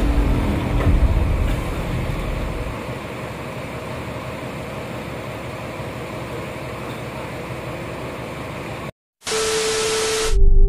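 A low engine rumble from the heavy-equipment yard fades over the first few seconds into a steady, even hiss. About nine seconds in the sound cuts out for a moment, then a burst of TV-static glitch noise with a steady beep begins, a video transition effect.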